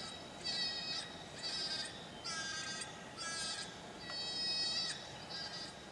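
Predator game call playing a high, bleating animal distress cry over and over, about six short cries in quick succession, to lure in a coyote.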